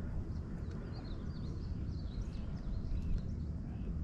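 Small birds chirping and twittering many times over a steady low rumble of wind.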